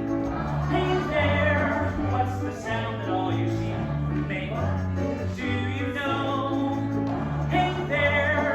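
A song from a stage musical: voices singing over an instrumental accompaniment with a steady, stepping bass line.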